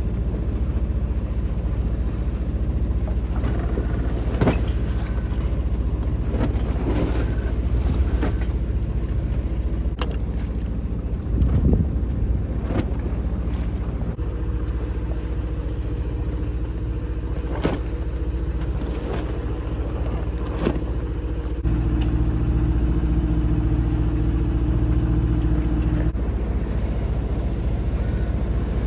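A sailboat's inboard engine running steadily under way, a low droning hum with water and wind noise over it and a few light knocks. A second, stronger hum joins for a few seconds about three-quarters of the way through.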